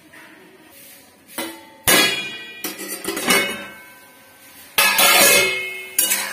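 Metal plate used as a lid being lifted off a metal kadhai, knocking and scraping against the pan's rim several times, each knock leaving a ringing metallic tone.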